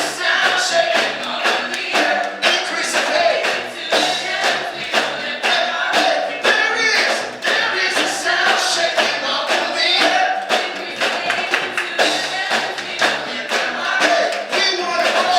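Music: a choir singing over a steady percussive beat.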